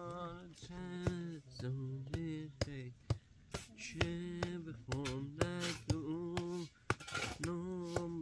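A voice singing a slow melody in long, wavering held notes, phrase after phrase, with sharp clinks at intervals.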